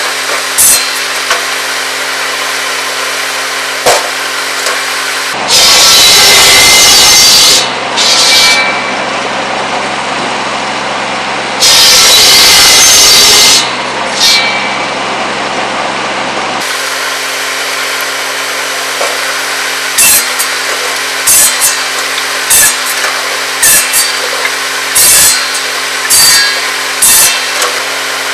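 Buzz saw (cordwood saw) spinning steadily, driven by a Kubota B7100 tractor. The blade bites through pole wood twice, each loud cut lasting about two seconds. Short wooden knocks come in between, mostly in the second half.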